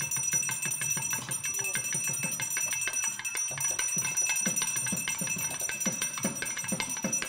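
Brass pooja hand bell rung continuously, its clapper striking rapidly many times a second over a steady ring.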